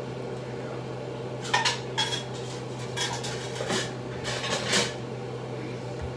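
Kitchen dishes, pots and utensils clattering as they are handled and set down: a run of clinks and knocks from about a second and a half in until nearly five seconds, over a steady low hum.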